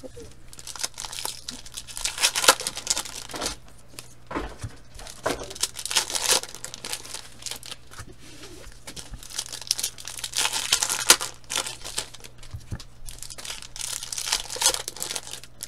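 Foil trading-card packs being torn open and their wrappers crinkled and crumpled by hand, in several irregular spells.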